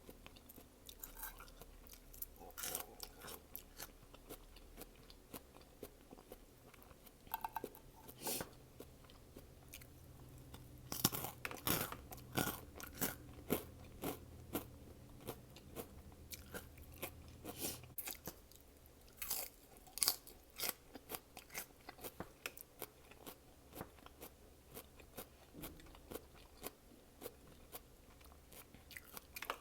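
A person chewing and crunching food close to the microphone, with wet mouth sounds and irregular crisp crunches. There are louder clusters of crunches about eleven seconds in and again about twenty seconds in.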